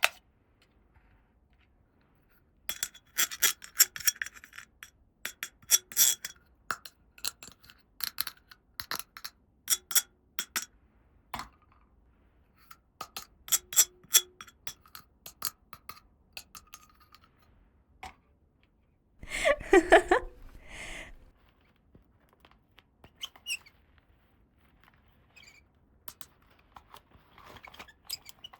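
Small plastic toy pieces being handled and set in place: a run of sharp clicks and taps, with a louder burst of handling noise about twenty seconds in.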